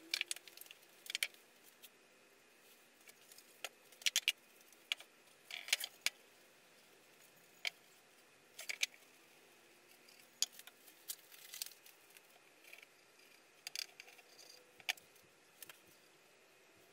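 Softwood timber frame pieces knocking and clattering as they are handled and test-fitted together, in scattered sharp knocks and clicks at irregular intervals.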